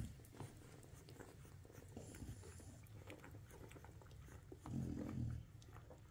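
Nano American bully puppies nursing: faint suckling smacks, and a low grunt of about half a second a little before five seconds in.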